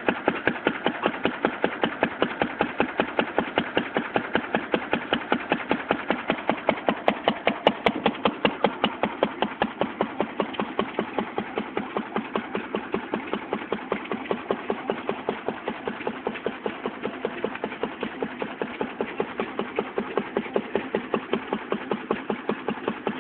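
1936 Lister D single-cylinder stationary engine running steadily, each firing stroke heard as an even, fast beat with no misses.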